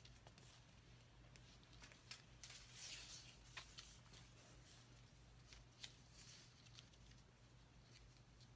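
Near silence with faint rustling and a few small ticks as a soft tape measure is unrolled and pulled around a waist, over a low steady hum.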